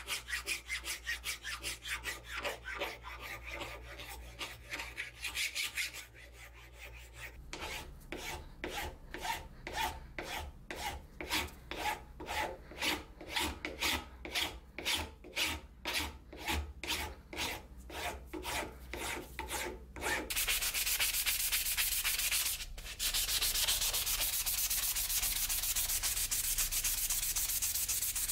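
Hand file scraping across steel in quick strokes, then slower, evenly spaced file strokes about twice a second. From about 20 s in, abrasive paper rubbed steadily back and forth over the steel blade by hand, with one brief pause.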